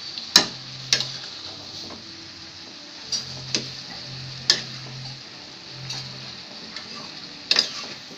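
Metal spatula clinking and scraping against a steel karai while stirring mustard greens frying in oil, over a steady sizzle. About seven sharp clinks at uneven intervals, two in quick succession near the end.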